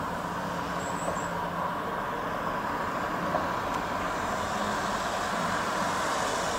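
A steady engine drone with a broad rushing noise over it, holding an even level throughout.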